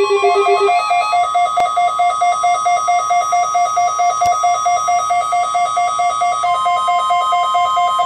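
Several NOAA weather radio receivers sounding their alert alarms for the weekly test. Rapid beeps at several different pitches, about four a second, play over a steady high tone. One set of beeps stops just under a second in.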